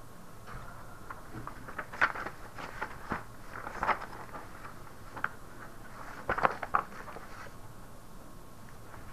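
Scattered light knocks, clicks and rustles of people moving and handling things in a small room, clustered in the middle few seconds over faint steady room noise.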